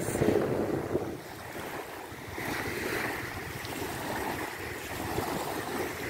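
Small wind-driven waves of the Gulf of Finland washing onto a sandy beach, with wind buffeting the microphone. A wash swells about two and a half seconds in and again near the end.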